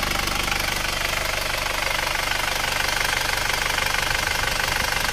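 Isuzu Panther diesel engine idling with a steady, even diesel clatter. The engine has just been rebuilt with new piston rings and seals, and it runs healthy at idle.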